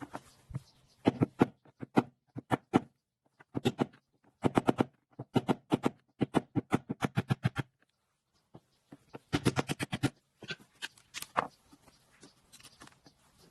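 Rapid hammer blows on metal in quick runs of several strikes a second, with short pauses between runs: knocking out the rusted outer race of a front-load washing machine's large drum bearing, already cut through in several places.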